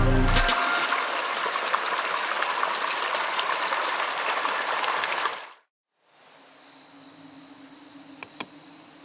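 Fast mountain creek rushing and splashing over rocks, which cuts off abruptly about five and a half seconds in. A much quieter background follows, with a faint steady high whine.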